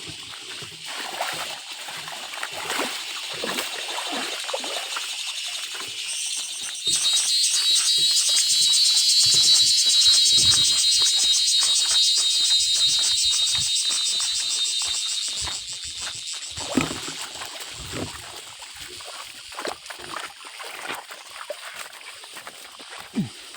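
Cicadas buzzing in a high, rapidly pulsing drone that swells sharply about seven seconds in and fades back about eight seconds later. Scattered light rustles and knocks sound underneath.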